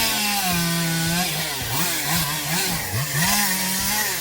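Two-stroke chainsaw revving up and down: held at full throttle twice, with a run of quick throttle blips in between, over the rasp of the chain.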